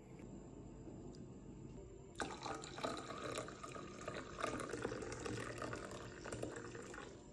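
Liquid pouring into a coffee cup, starting about two seconds in and stopping abruptly near the end.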